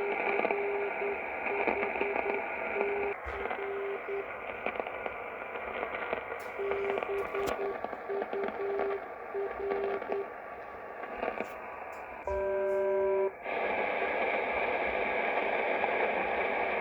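Shortwave receiver, a Sony ICF-2001D, giving a steady hiss of static with crackles between signals. A single tone keys on and off in Morse code twice. About twelve seconds in, a louder, harsher tone sounds for about a second.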